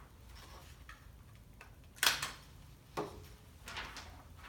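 A few short sharp clicks and knocks about a second apart, the loudest about two seconds in, over faint room noise.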